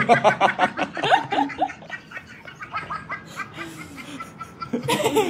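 A man laughing in quick bursts, loudest in the first second or two, then trailing off into quieter laughter.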